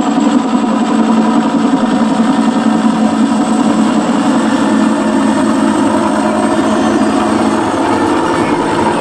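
Helicopter noise played back over loudspeakers as a noise simulation: a steady rotor and engine drone with a rapid flutter.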